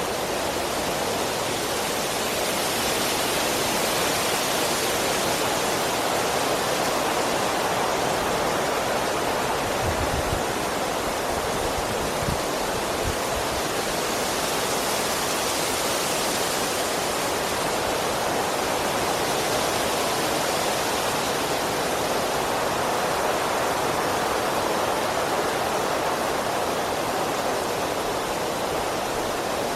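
Strong wind blowing through trees: a steady rushing of leaves and branches that swells and eases in gusts, with a few brief low thuds near the middle.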